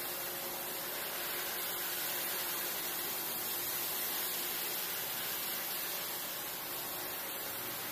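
Single-disc rotary floor machine running steadily as it scrubs a prayer carpet: an even hiss of motor and brush that holds the same level throughout.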